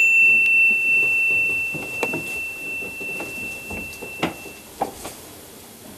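A single high ringing tone that fades away over about five seconds, with a few soft knocks under it.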